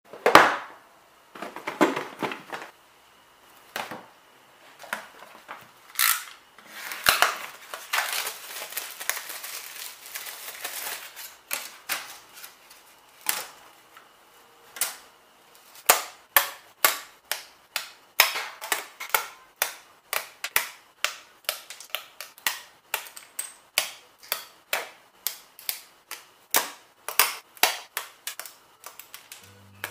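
Rustling and handling of the kit's packaging and thin plywood sheets, then a long run of sharp snaps, about one or two a second, as laser-cut wooden pieces are pressed out of their plywood sheets.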